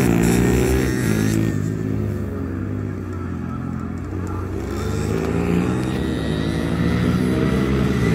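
A pack of small race motorcycles, an Aprilia RS50 two-stroke among them, revving hard through the gears. The engine note fades as they ride off into the distance, then grows louder again as they come back round.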